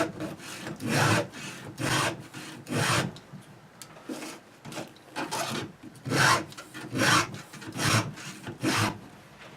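Round file rasping forward across the cutter teeth of a 24-inch chainsaw chain: hand sharpening, one stroke about every second, with a short pause a little over three seconds in before the strokes resume.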